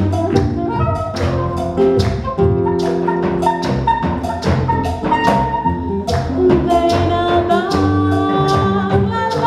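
Small jazz-tinged acoustic band playing live: a soprano saxophone holds long melody notes over acoustic guitar, electric bass and hand percussion keeping a steady beat.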